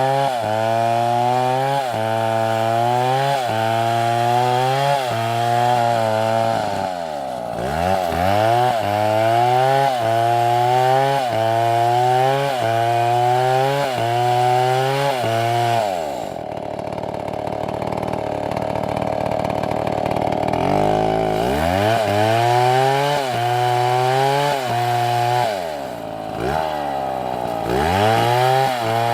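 Chainsaw engine running hard, its pitch sagging and climbing back in a steady rhythm about once a second. For several seconds past the middle it drops to a lower, rougher note, then picks up the same rise-and-fall again.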